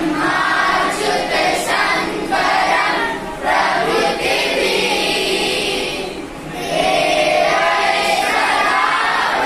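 A group of boys singing a prayer together in unison, phrase by phrase, with a short break between lines about six seconds in.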